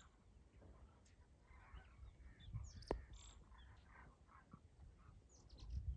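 Faint calls of a large flock of birds flying high overhead, scattered through the whole stretch, with one sharp click about three seconds in.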